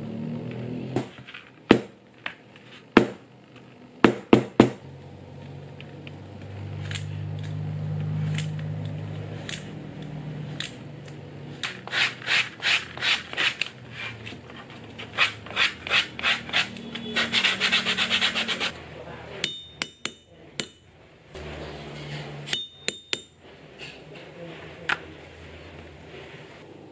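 Leather wallet edges rubbed briskly with a cloth, in quick back-and-forth strokes several a second: edge burnishing. A few sharp taps and knocks from handling the leather come in the first seconds and again near the end.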